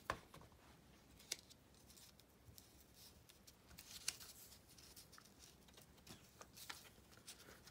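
Near silence with faint paper rustling and a few small clicks as fingers press a freshly glued kraft cardstock piece closed over a paper clip; a sharp tap right at the start and another about a second in.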